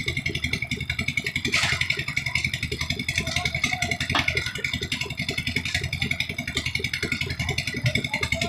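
Concrete mixer's engine running steadily with a fast, even chugging and a steady high whine over it.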